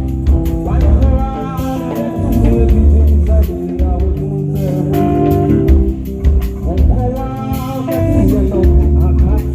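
Live band playing a song with a singer, electric guitar, bass and drum kit, loud throughout.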